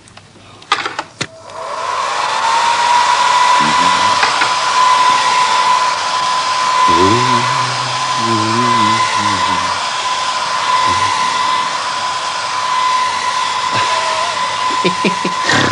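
A loud electric whirring hum starts about a second and a half in, a few clicks before it. Its whine rises briefly, then holds one steady pitch over a hissing rush.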